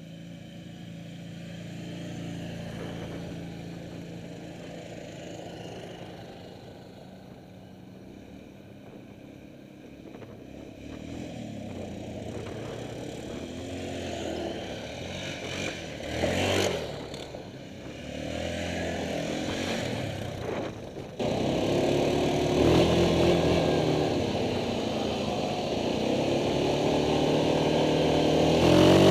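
Several ATV (quad bike) engines running and revving as the quads pull off along a road. One passes close a little past halfway. For the last third a quad engine runs loud and close, rising and falling with the throttle.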